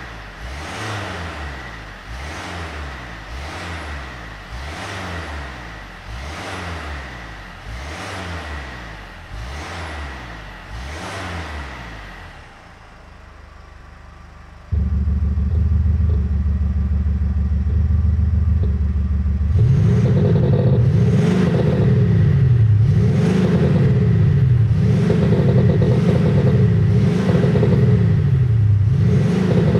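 Mercedes-Benz GLC 250 CDI four-cylinder diesel free-revving in quick blips, about one a second, with its stock exhaust sound. About halfway through, a CETE active sound unit comes on at idle with a sudden, much louder low drone, and the blips after it carry a deeper, louder synthetic engine note laid over the diesel.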